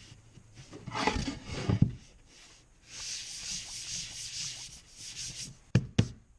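A hand rubbing over the smooth face of a walnut, cherry and maple cutting board in a few long strokes, followed near the end by two sharp knocks.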